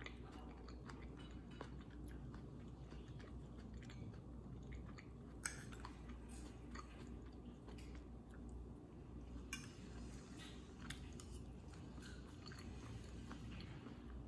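Faint close-up chewing of pesto pasta over a steady low room hum, with small scattered clicks and two sharper clicks partway through.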